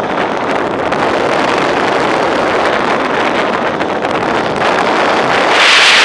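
Airflow rushing over the onboard camera's microphone on a radio-controlled Duo Discus glider in flight: a steady rushing hiss that swells louder and brighter near the end.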